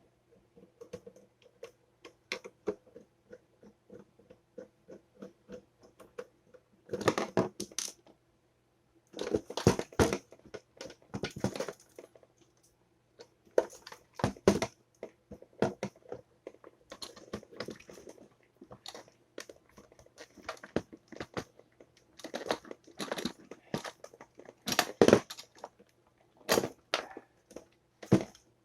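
Hand work on a toaster: irregular clicks, taps and knocks of its metal and plastic parts being handled, with several louder scraping or rattling bursts.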